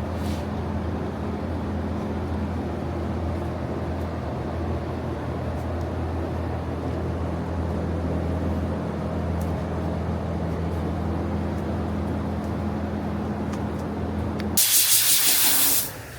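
A steady low machine hum, then near the end a loud burst of hiss about a second and a half long: a compressed-air blow gun blowing off a car fender being prepared for primer.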